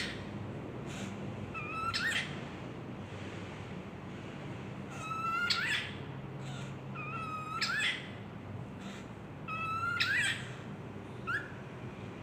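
Pet cockatiel making its mimicked kissing sound over and over. Each kiss is a short squeaky call that sweeps sharply upward in pitch, repeated about every two to three seconds, with a shorter one near the end.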